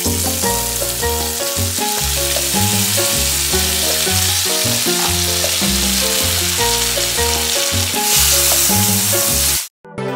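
Diced Spam and onion sizzling in a frying pan as kimchi is spooned in, over background music with a steady bass line. Both cut off abruptly just before the end.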